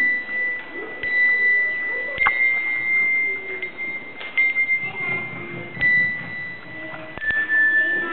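Handbells being rung one note at a time, each struck note ringing on as a long clear tone, with a new strike every second or two. About seven seconds in the melody steps to a lower note.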